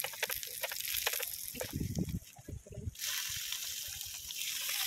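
Silicone spatula scraping and tapping in an aluminium mess tin of frying onions on a portable gas stove, then, about three seconds in, a steady sizzling hiss of the food frying.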